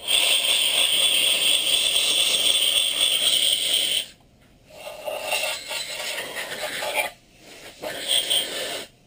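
Cleaning out the exhaust port of a Jeep 4.7 V8 aluminium cylinder head: a loud, harsh scraping rush that runs evenly for about four seconds, stops, then comes back twice in shorter, more uneven stretches.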